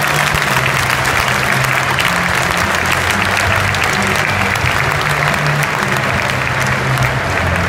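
Football stadium crowd applauding: thousands of hands clapping at once, a dense, even sound with no pause.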